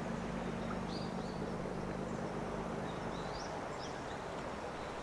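Steady outdoor rushing background noise with a few short bird chirps, about a second in and again near four seconds. A low hum underneath stops about three seconds in.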